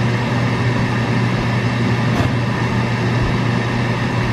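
A fan running steadily: an even rush of air over a low hum, with a faint click about two seconds in.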